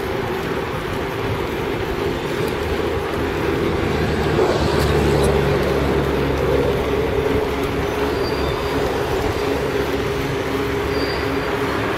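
Steady riding noise from a two-wheeler on a paved road: wind and road rumble with a steady motor hum that swells about four seconds in.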